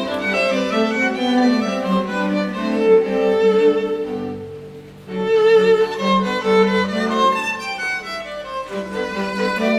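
Background music led by violin and bowed strings, fading out about four seconds in and starting again a second later.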